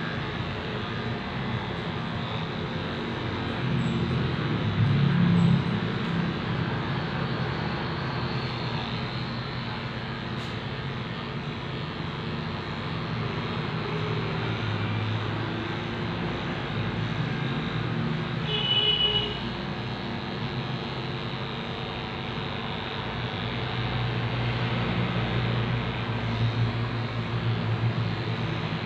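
Corded electric dog clippers running with a steady low hum as they shave a dog's coat, swelling a little at times. A brief high chirp sounds about two-thirds of the way through.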